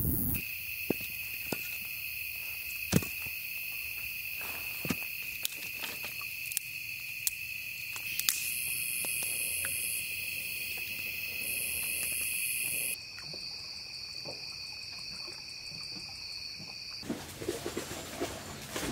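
A steady high chirring of evening insects, with scattered sharp pops and crackles from a wood campfire. About two-thirds of the way in the insect drone shifts higher, and near the end it gives way to a soft rushing noise.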